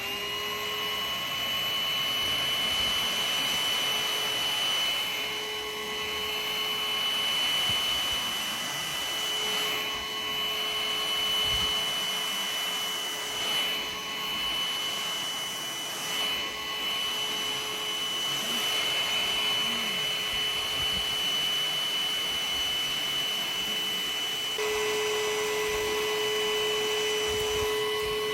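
Homeika cordless vacuum cleaner running steadily with a high motor whine and airflow rush, working over couch upholstery with its upholstery attachment. The level dips slightly now and then, and a lower hum grows stronger about three-quarters of the way through.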